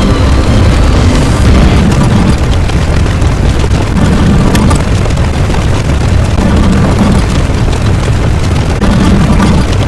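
Loud, continuous deep rumble, like a boom or explosion sound effect, swelling and easing every couple of seconds.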